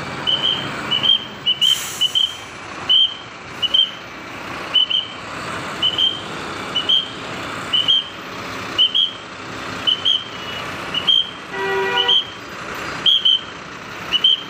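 Bus reversing alarm chirping: short high upward chirps, often in pairs, repeating about once a second over the running of bus engines. A brief horn honk sounds about twelve seconds in.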